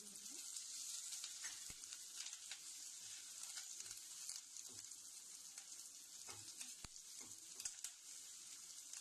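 Sliced shallots, green chillies and curry leaves sizzling faintly in hot coconut oil, with a few soft knocks of a silicone spatula against the pan as they are stirred.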